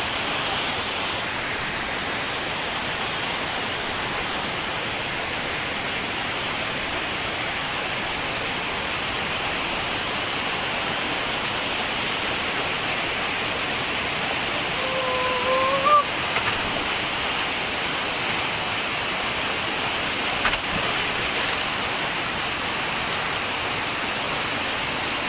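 Steady rushing noise of the Tumpak Sewu waterfall, heavy water falling and spraying. About fifteen seconds in, a brief rising pitched call sounds over it.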